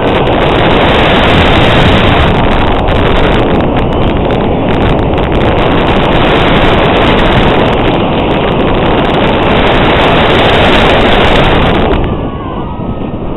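Heavy wind rushing over the microphone mixed with the roar of a Bolliger & Mabillard floorless steel roller coaster train running along its track at speed. The noise eases a little near the end as the train goes through an inversion.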